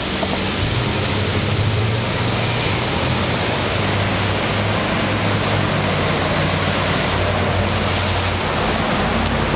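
Steady street-traffic noise: a loud, even hiss with a low, wavering hum of car engines underneath.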